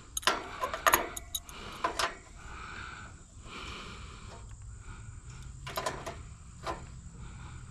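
Adjustable wrench working a bolt on an air-conditioner condenser's sheet-metal fan top: several sharp metal clicks in the first two seconds, softer scraping and rasping through the middle, and a couple more clicks about six seconds in.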